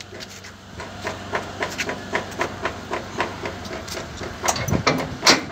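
Sheet-steel side door of a pickup's load body being handled and swung open, rattling and clanking on its hinges and latch: a run of quick clicks, then a few louder metal knocks near the end.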